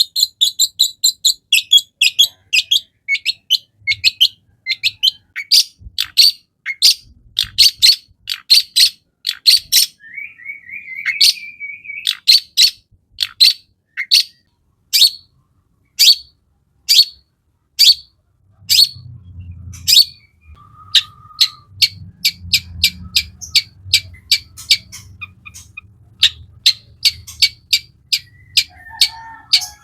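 Long-tailed shrike singing an aggressive 'fighter' song. It opens with a fast, high chattering run, has a short buzzy phrase partway through, and then gives sharp single calls about once a second that speed back up near the end. A low rumble sits beneath the second half.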